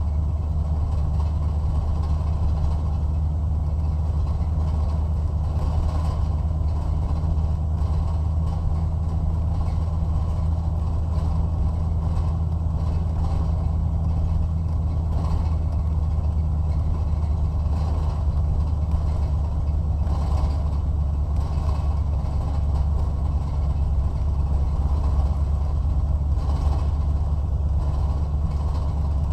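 Car engine and road noise heard from inside the cabin while lapping a race track: a steady low drone that does not change.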